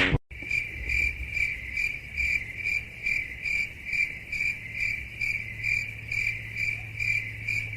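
Cricket chirping, a steady high chirp repeated about twice a second over a low steady hum, starting and stopping abruptly.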